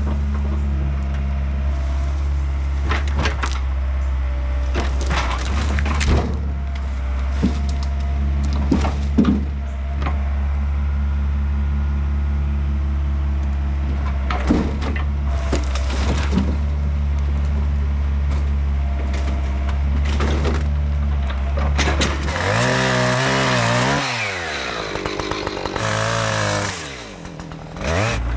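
Diesel engine of a Yanmar B50 mini excavator running steadily while hickory wood cracks and snaps under the machine. Toward the end a louder, noisier stretch comes in and the engine's pitch sags twice, as if the engine is pulled down under load.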